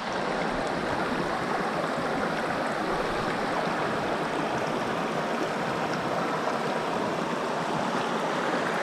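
Steady rushing of fast-flowing water, an even, unbroken roar.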